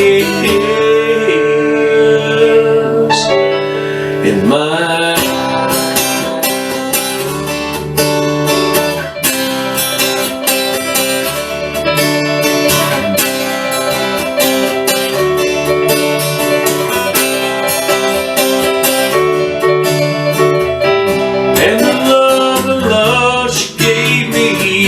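Music: an instrumental break in a country-style song, with acoustic guitar picked and strummed under a sustained melody line that slides between notes near the start and near the end.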